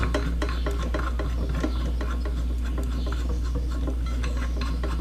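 A CO2 regulator's brass inlet nut being screwed by hand onto a CO2 cylinder valve: light metal-on-metal rubbing with small scattered clicks from the threads.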